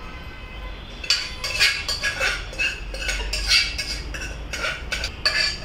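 A spoon scraping and clinking against the inside of a metal pressure cooker pot as curry is scraped out into a steel bowl. The scrapes start about a second in and repeat two or three times a second.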